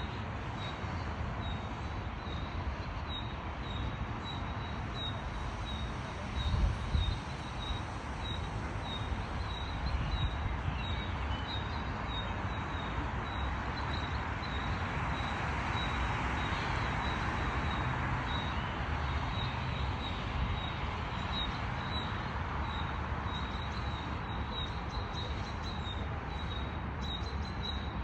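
Outdoor city ambience: a steady hum of traffic that swells as a vehicle passes about halfway through, with a bird giving a short, high, single-note chirp about twice a second.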